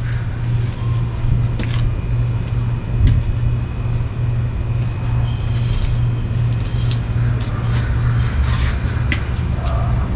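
A steady low mechanical hum, with a few light clicks and knocks from plastic plant pots being handled, mostly near the end.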